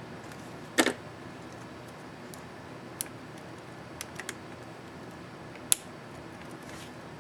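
Plastic clicks of a keycap being worked on an ASUS X551C laptop keyboard: a loud double click about a second in, a single click at about three seconds, three light ticks around four seconds and a sharp click near six seconds.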